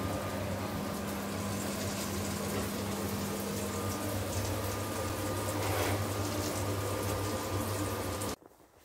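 Pork frying in a pan, a steady sizzle with fine crackling over a steady low hum; it stops abruptly near the end.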